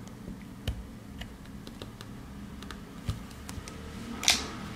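Scattered small plastic clicks and ticks as a precision screwdriver pries the end cap off a Samsung T7 Shield portable SSD, with a louder snap a little past four seconds in as the cap works free of its seal.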